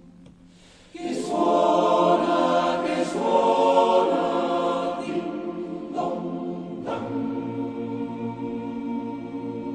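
A choir singing held chords, coming in loudly about a second in after a near-quiet start.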